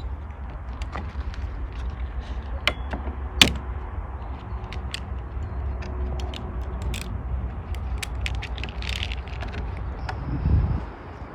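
Scattered clicks and knocks from hand work on a repaired wooden door, likely as its clamping straps are taken off, with one sharp knock about three and a half seconds in and a low thud near the end, over a low steady rumble.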